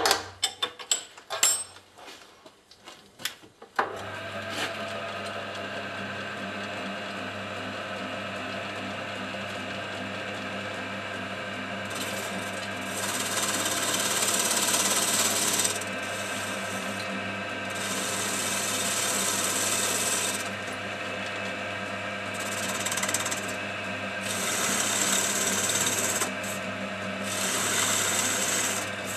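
Metal clicks and knocks from tightening the four-jaw chuck, then about four seconds in a 1942 South Bend lathe starts and runs with a steady hum. From about twelve seconds in, the cutting tool facing the brass casting makes a hissing scrape in several passes of a few seconds each.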